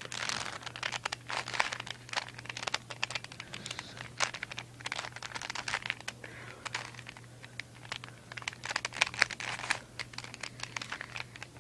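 Plastic Rubik's Cube being twisted quickly, its layers clicking and clacking in rapid, irregular runs of turns.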